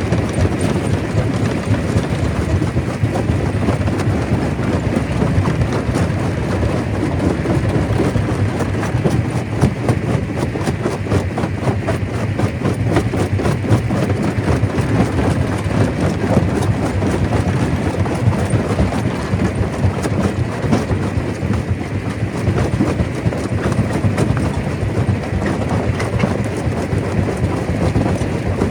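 Stone crusher running, with a steady low rumble and a dense, unbroken clatter of rock being broken and rattling through the machine.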